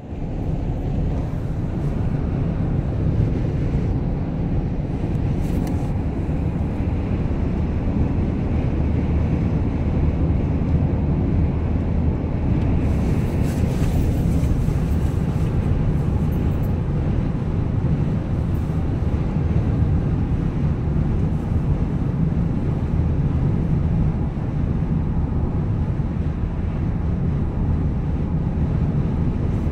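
Steady low rumble of road and engine noise inside a moving car's cabin, with a brief swell of hiss about halfway through.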